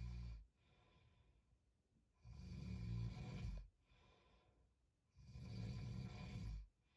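Heavy snoring: a snore ending just as the sound begins, then two more long snoring breaths about three seconds apart, each about a second and a half, with quiet pauses between.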